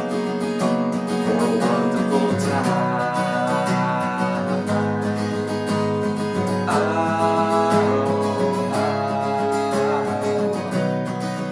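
Taylor steel-string acoustic guitar strummed steadily, with a man singing over it.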